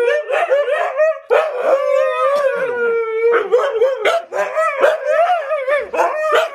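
Two Siberian huskies howling and yowling over each other in a continuous wavering 'talking' chorus, one long call held near one pitch with shorter bending woo-woo calls overlapping it, broken by brief pauses about a second in and again near four seconds.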